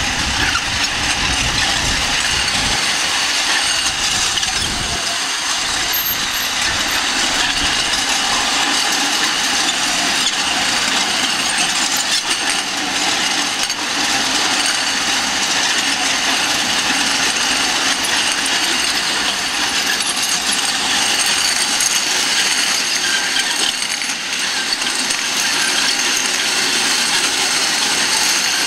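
Metal rollers of a long roller slide clattering steadily as a child rides down it on a mat.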